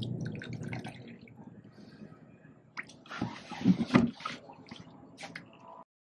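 Laundry liquid pouring and trickling into a small plastic cup, followed by a few knocks and handling of plastic. The sound stops suddenly near the end.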